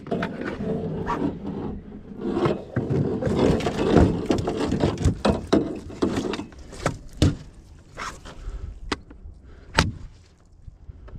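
Irregular knocks, scrapes and sharp clicks as a landing net holding a large coho salmon is handled against the floor and sides of a small aluminum boat. The sounds are busy for the first several seconds, then thin out to a few isolated clicks.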